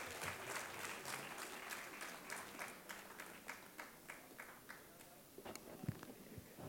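Audience applauding, the claps thinning and dying away over about five seconds. Near the end there are a couple of dull thumps as the lectern microphone is handled and adjusted.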